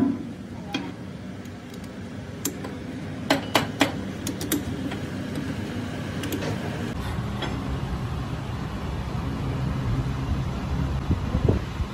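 Sharp metallic clicks and clinks from handling a brass workpiece and the lathe chuck, loudest in the first half, over a steady low machine hum that grows louder after about seven seconds.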